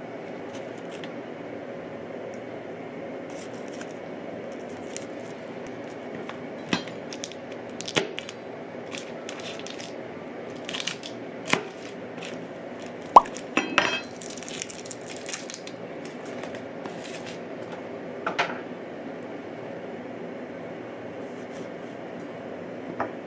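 Chef's knife knocking and cutting on a plastic cutting board while garlic cloves are broken apart and sliced: a series of separate knocks and clicks, the sharpest a little past halfway, over a steady low hiss.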